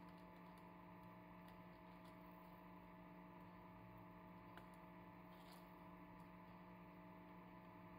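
Near silence: room tone with a faint, steady electrical hum.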